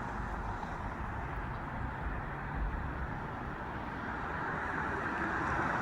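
Road traffic going by: a steady rush of car tyres and engines, growing slowly louder over the last two seconds as a vehicle approaches.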